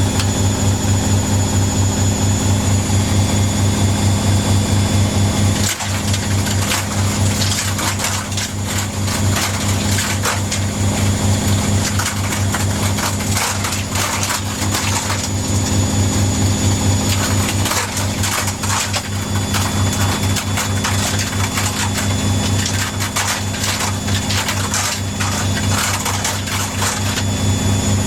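ARDO Young Anna 810 front-loading washing machine on its spin cycle: a steady hum with a fast pulse and a thin high motor whine. Over it comes an irregular rattling knock, like balls loose inside the machine, growing thicker about six seconds in. This knocking is a new fault during spin.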